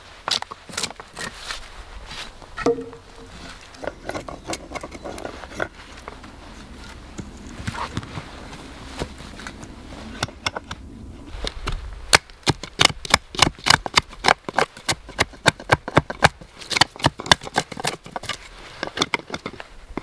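Hand-tool work on wood: scattered sharp clicks and knocks, then, a little past the middle, a fast even run of sharp strokes, about four a second.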